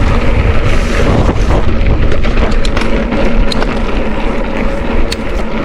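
Wind buffeting the microphone while riding at speed, a loud steady rumble of rushing air with road noise.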